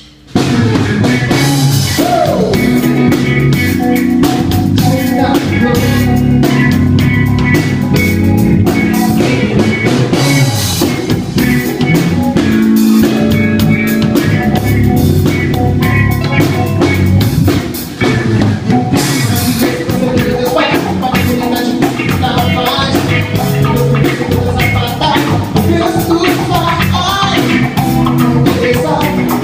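A rock band playing: drum kit, bass, electric guitar and keyboard together, with a singing voice at times. The music starts abruptly at full volume and keeps a driving drum beat, easing briefly about two-thirds of the way through.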